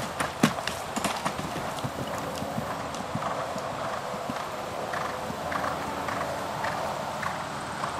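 Chestnut Thoroughbred gelding cantering on grass, its hooves thudding on the turf in a rhythm. The hoofbeats are sharpest and loudest in the first second or so, then grow softer as the horse moves away.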